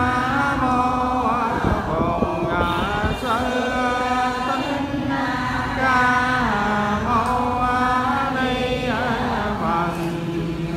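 Vietnamese Buddhist chanting, sung in long, held phrases with slow rises and falls in pitch.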